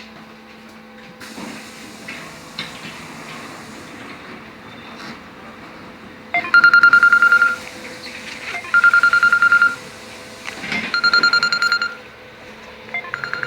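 An electronic warning beeper inside a LiAZ-6274 electric bus sounding four times, each a second-long burst of rapid high beeps, about two seconds apart. Under it runs the bus's low steady hum.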